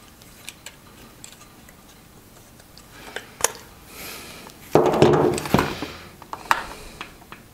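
Handling noise: small plastic clicks as an action camera's clear housing and its mount are fitted together, then a louder clatter of about a second as a motorcycle helmet is picked up and turned on a wooden table, followed by a few more clicks.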